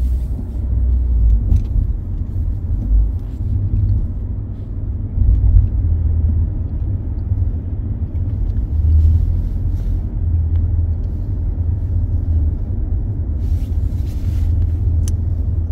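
Low, steady rumble of a taxi heard from inside its cabin while it drives in slow traffic.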